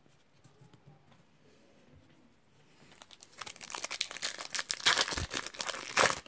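Foil wrapper of a 2017 Topps Update baseball card pack being crinkled and torn open by hand. It starts about halfway through as dense crackling and grows louder toward the end.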